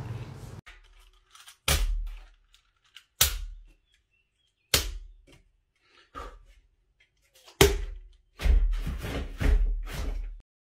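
A plastic water bottle being brought down onto a stack of Rubik's cubes: sharp knocks about a second and a half apart, then a quick run of heavier thumps near the end.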